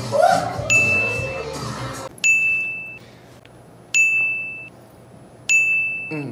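A bright electronic ding sound effect, struck four times about a second and a half apart, each ringing briefly before it cuts off. Each ding marks one more count on a tally of hair-touches.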